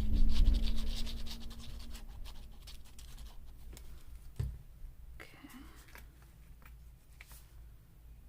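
Washi tape and paper being handled and pressed down by hand: scratchy rubbing and crinkling, loudest in the first two seconds. A single knock comes about four and a half seconds in, then lighter taps and rustles.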